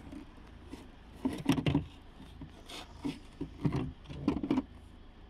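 Hard plastic rubbing and knocking as hands handle the back of a removed car tail-light unit: a few short, irregular scrapes and knocks.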